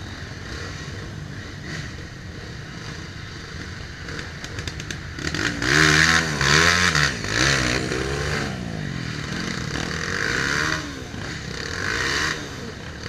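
Dirt bike engines: a steady running engine at first, then from about five seconds in a dirt bike's engine revved hard in repeated bursts, its pitch swinging up and down, as the rider tries to drive it up a steep bank.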